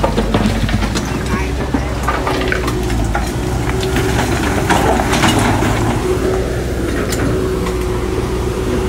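Heavy diesel earthmoving machinery running steadily at a low, even pitch, with scattered sharp metallic clanks and knocks throughout.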